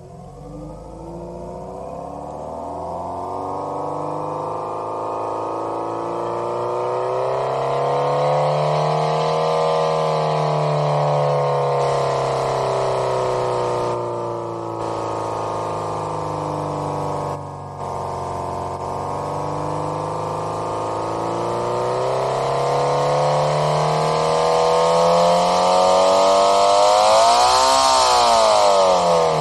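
Homemade optical engine-sound generator imitating a Subaru EJ20 flat-four with equal-length exhaust as heard from inside the cabin, being revved with no load. The pitch climbs slowly to a peak about ten seconds in, falls back, then rises higher to a second peak near the end before dropping quickly.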